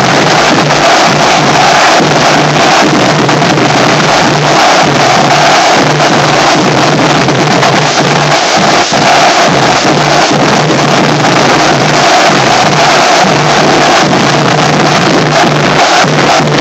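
Marching drumline playing loud, with snare drums and crash cymbals in a dense, fast rhythm.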